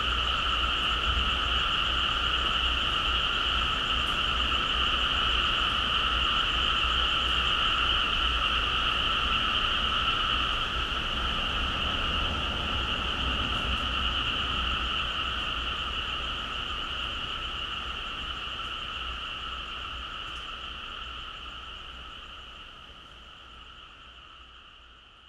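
Dense night chorus of frogs calling continuously, fading out gradually over the second half.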